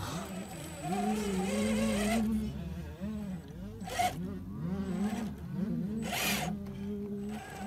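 Radio-controlled rock crawler's electric motor and gear drive whining, its pitch rising and falling again and again as the throttle is worked. Two short scrapes come about four and six seconds in.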